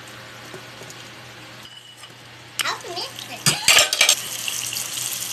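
Garlic frying in hot oil, then chopped onion knocked off a spoon into the pan: a quick run of clattering knocks of the spoon on the pan about three and a half seconds in, after which the frying hiss grows louder as the onion hits the oil.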